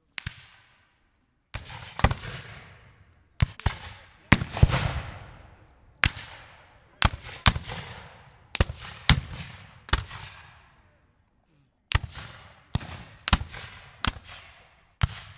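Rifle muskets firing single shots at random, irregular intervals, some in quick pairs, each followed by an echo that dies away over about a second. There is a pause of about two seconds a little past the middle.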